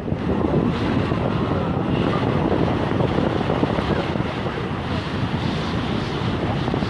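Wind buffeting the microphone over small sea waves washing and splashing in the shallows.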